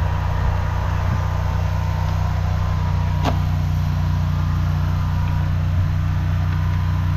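Engine of a high-pressure drain jetter running steadily, with a faint steady whine on top. A single sharp click about three seconds in.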